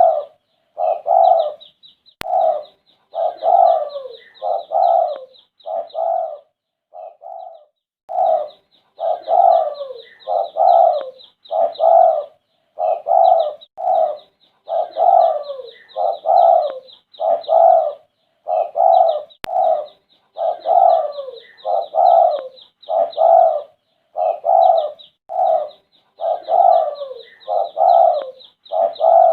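Spotted dove cooing over and over in a steady run of short coos, a little over one a second, with a brief pause about a quarter of the way in. A fast, high chirping runs above the coos.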